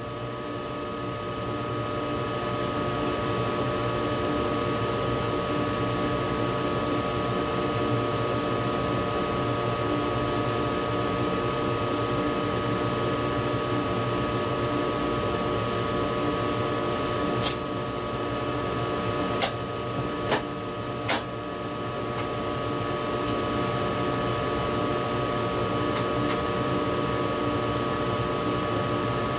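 Steady electric hum and hiss inside the driver's cab of an ICE high-speed train, a mix of held tones over an even noise. Four short sharp clicks come just past the middle.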